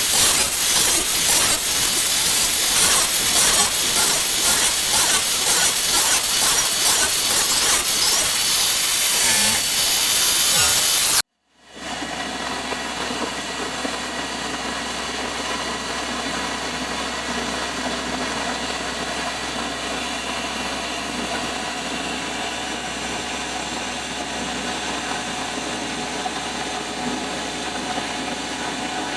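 Power tool cutting in a woodworking shop, a loud hissing whine with a fine regular pulsing, that cuts off abruptly about eleven seconds in. After a brief silence, a quieter, steady machine hum with several steady tones takes over.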